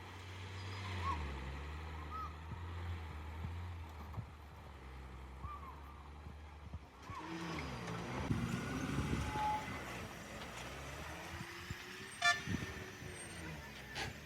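Heavy truck engine running at a steady low rumble, then revving up and growing louder about halfway through. A brief horn toot sounds near the end.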